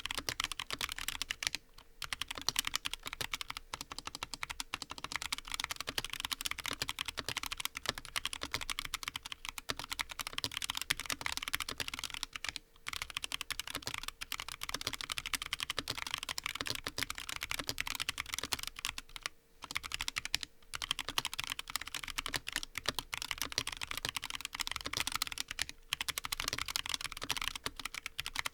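Continuous fast typing on a top-mount custom mechanical keyboard with a brass plate and lubed Huano White Blue switches: a dense stream of key strokes, broken by a few short pauses.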